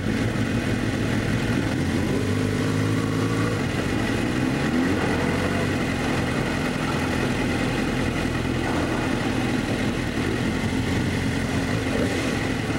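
Sport bike engine running at a low, steady speed, then revved up twice as the bike pulls away and gets under way. Wind and road noise rise with speed.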